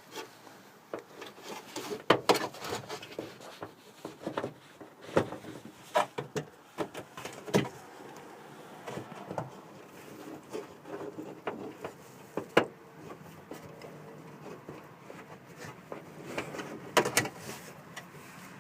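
Irregular clicks, knocks and rattles of plastic parts being handled and fitted back together: the license plate light sockets and the rear-door trim pieces of a Toyota Sienna.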